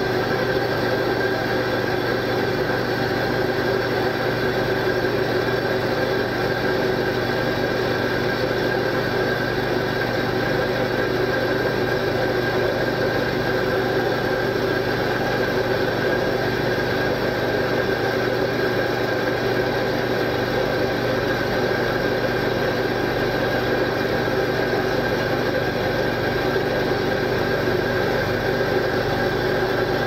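Steady hum of a steam boiler's automatic water feeder running, feeding water slowly through its restricting orifice to refill the boiler after the low-water cutoff tripped.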